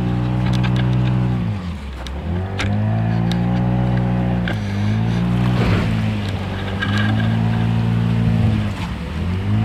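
An engine running steadily, its pitch dipping and recovering about every three seconds, with scattered sharp clicks and a rough crunch midway.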